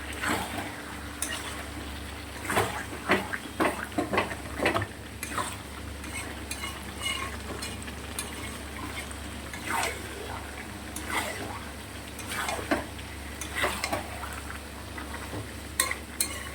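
A spatula scraping and knocking against a cooking pan at irregular moments while masala-coated chicken pieces are stir-fried over a steady sizzle. This is the slow kosha stage of browning the chicken in its spices.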